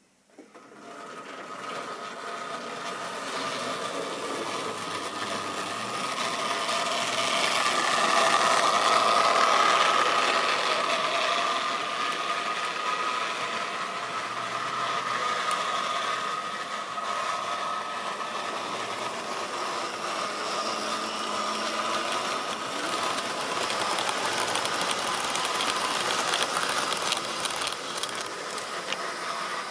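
Electric model railway train running along sectional track: a steady whine over continuous running noise, rising over the first few seconds and loudest about eight to ten seconds in as the train passes close by.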